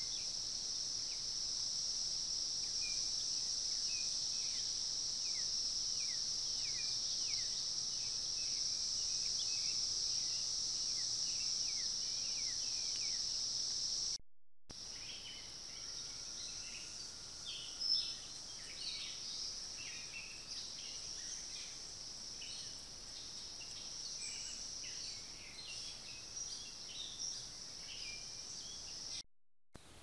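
Steady, high-pitched drone of insects in summer woodland, with birds calling over it: a run of short falling notes in the first half, then a busier scatter of chirps. The sound cuts out briefly about halfway, where the clips change.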